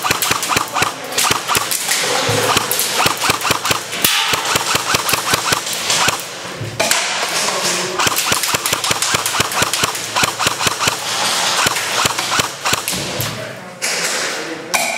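Airsoft guns firing rapid full-auto bursts, a fast, dense rattle of clicks with a few short breaks.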